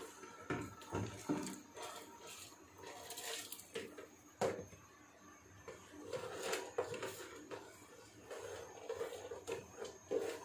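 Soaked sela rice poured from a plastic tub into a steel pot of boiling water: faint sliding and splashing, with scattered light knocks of the plastic against the pot and one sharper click about four and a half seconds in.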